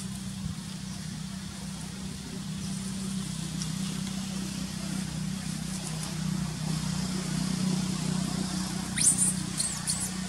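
A baby macaque gives a few sharp, high-pitched squealing calls that sweep up and down, about nine seconds in. Under them runs a steady low hum.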